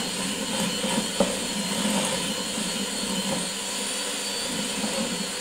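Handheld electric mixer running steadily, its beaters creaming butter and sugar in a glass bowl, a steady motor whine over the churning, with one sharp tick about a second in.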